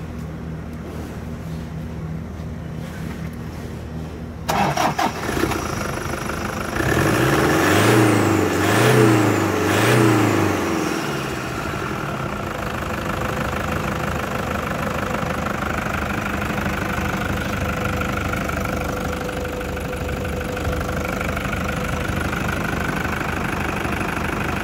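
Toyota Hilux D-4D common-rail turbodiesel engine starting about four seconds in. It is revved three times in quick succession, then settles into a steady idle.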